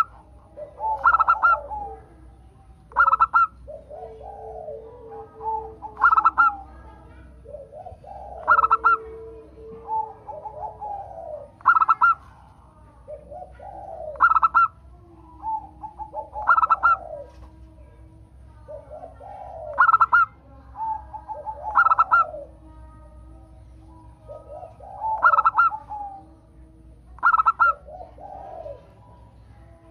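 Zebra dove (perkutut) song: a phrase of soft cooing notes ending in brighter, ringing notes, repeated about a dozen times, every two to three seconds.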